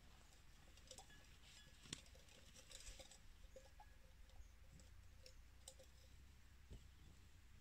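Near silence with faint, scattered clicks and light rustles, like footsteps and small twigs cracking on the dry forest floor.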